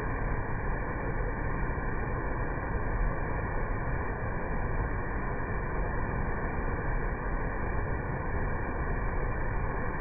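Waterfall pouring heavily, its flow swollen by typhoon rain, giving a steady, unbroken rush of falling water that is weighted toward the low end.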